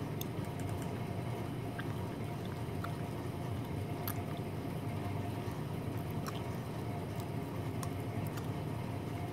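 Steady low background hum with a faint steady whine above it and scattered faint clicks.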